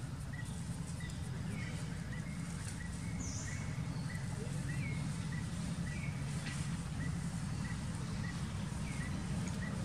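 Outdoor ambience of small birds calling: a short high chirp repeated evenly about two to three times a second, with a few longer calls in between, over a steady low rumble.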